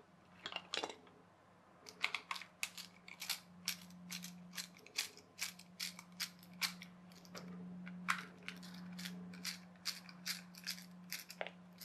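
Irregular clicks and rattles of small plastic parts being handled and worked, as the plastic wired remote-control handset of a toy plane is taken apart, over a faint steady low hum.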